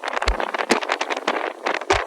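Santa Ana wind blowing hard, with dense, irregular clattering and rattling over a hissing rush. There are a couple of heavier thumps, one about a quarter second in and one near the end.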